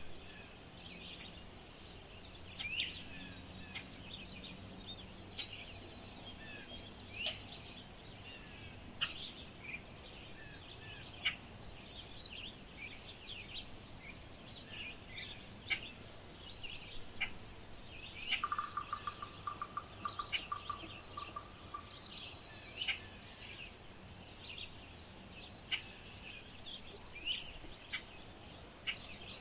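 Small birds chirping: many short, high chirps scattered throughout, with one even trill lasting about two and a half seconds past the middle.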